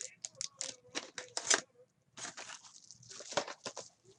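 Trading-card pack wrapper being torn open and crinkled: a quick run of crackles and rips, with a short pause about two seconds in.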